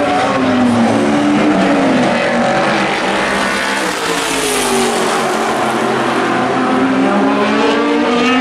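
Engines of historic Group C and Le Mans prototype race cars running at racing speed around the circuit. The pitch sinks during the first couple of seconds, then climbs again through the second half.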